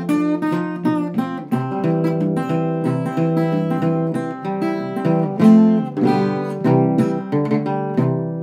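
Acoustic guitar playing an instrumental passage of picked notes and strums, ending on a chord left to ring and fade.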